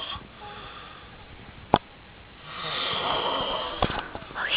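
A man snoring loudly in his sleep: one long snore of over a second, starting about two and a half seconds in, with a sharp click shortly before it.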